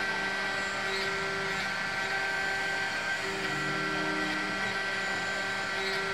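CNC vertical milling machine cutting a metal block with an end mill: a steady machining noise with a high spindle whine, and a lower hum that swells and drops back every second or two.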